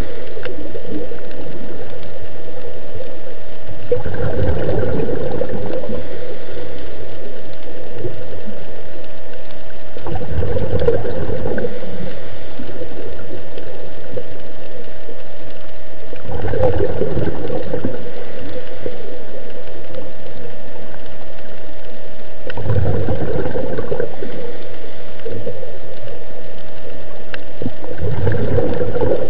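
Scuba diver breathing underwater through a regulator: exhaled bubbles gurgle out in a burst about every six seconds, five times, over a steady hum.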